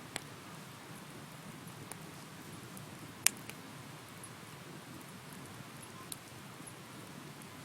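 Wood bonfire burning with a steady low rumble and a few sharp crackling pops, the loudest a little over three seconds in.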